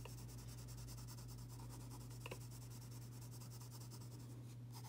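Graphite pencil shading on paper, a faint steady scratching, over a steady low electrical hum.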